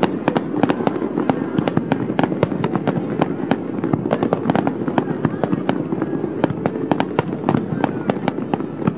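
Fireworks display: a rapid, irregular string of sharp bangs and crackles from small shells and crackling stars bursting, several a second, over a steady rumble.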